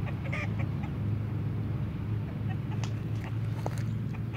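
Outdoor ambience dominated by a steady low rumble, with scattered light clicks and a short, faint animal call about half a second in.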